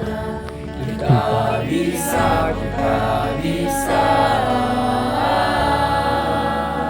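High school choir singing, several voices holding and moving through sustained notes.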